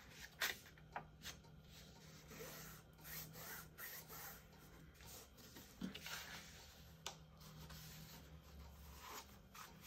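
Faint paper sounds of an envelope blank being folded on its score lines and creased: a few sharp crackles of the paper bending in the first second or so, then soft rubbing as the folds are pressed down and a folding tool is run along the crease.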